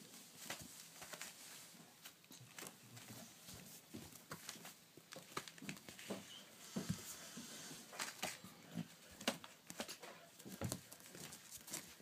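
African grey parrot chicks shifting about on a paper towel: scattered soft taps, scratches and paper crinkles, irregular throughout.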